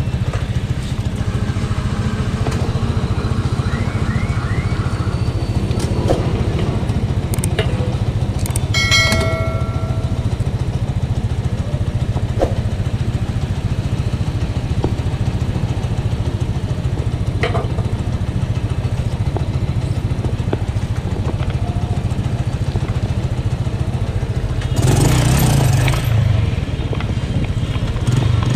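Honda CG125's single-cylinder four-stroke engine running steadily while riding in traffic. A horn sounds briefly about nine seconds in, and a louder rush of noise comes about twenty-five seconds in.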